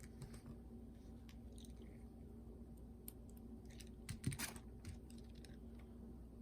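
Faint scattered clicks and light taps of small parts and tools being handled while a cassette walkman is taken apart, with a short, louder clatter about four seconds in.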